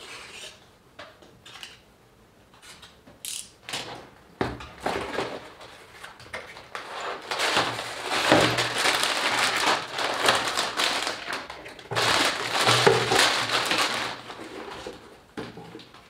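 Cardboard box being opened with a few scattered taps and scrapes, then plastic bags of building-brick parts rustling and crinkling as they are pulled out, in two long stretches.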